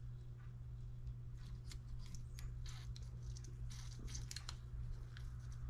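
Faint scattered clicks and taps of a plastic fuel syringe being handled against a small model engine's fuel tank while fuel is squeezed in, over a steady low hum.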